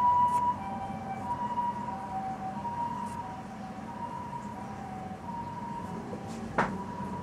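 Ambulance's two-tone hi-lo siren, a higher and a lower note taking turns about every half second. A sharp click sounds once near the end.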